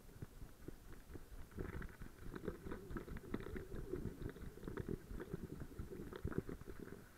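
Irregular muffled thumps and rustling from a camera mounted on a running dog's back: the dog's footfalls and body movement jostling the camera.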